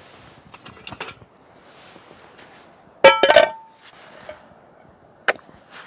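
A black frying pan set down onto a titanium Firebox stick stove: a loud metal clank about three seconds in that rings briefly, and a sharp knock near the end.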